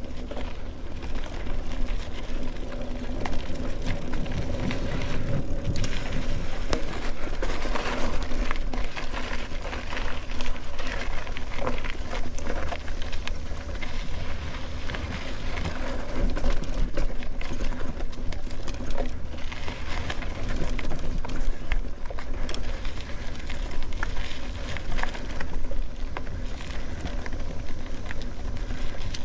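Mountain bike rolling along a dirt single-track: tyre noise on the packed trail with frequent rattles and clicks from the bike over bumps, over a low rumble of wind on the microphone.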